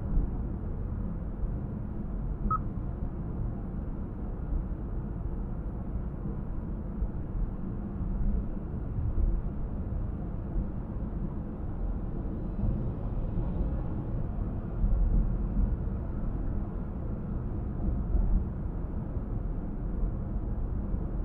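Car driving on a city road: steady low road and tyre rumble with engine noise, swelling slightly now and then, and one very short high blip about two and a half seconds in.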